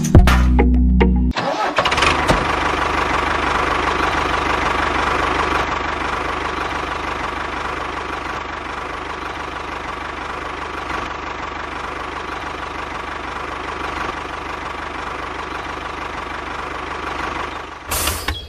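A small motor running steadily, starting about a second in and stopping just before the end, easing a little quieter partway through.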